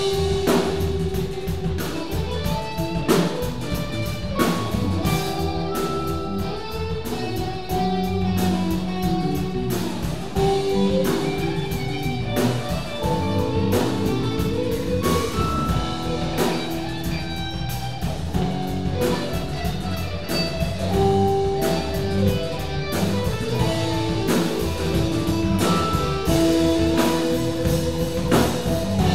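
Live rock band playing an improvised jam: electric guitars, bass guitar, keyboard and drum kit together, with held guitar notes over a steady drum beat.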